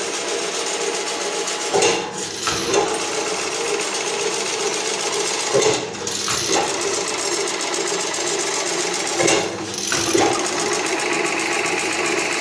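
Automatic chain-link mesh machine (MODUL B-747) running: a fast, steady mechanical clatter, with a short break and knock about every four seconds as the machine goes through its cycle.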